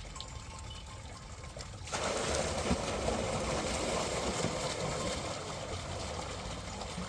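Water running steadily, with a gushing rush that starts abruptly and grows louder about two seconds in.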